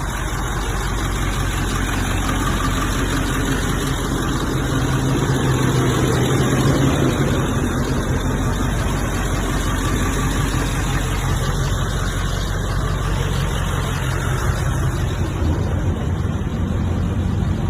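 Pickup truck engine idling steadily, a little louder a few seconds in.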